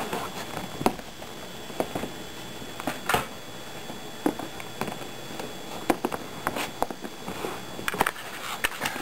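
Scattered, irregular light clicks and knocks of a person moving about and handling things in a small room, over a steady hiss.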